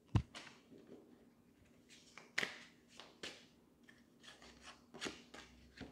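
Oracle cards being handled and laid on the reading table: a dull knock at the start, then a few scattered soft card clicks and rustles.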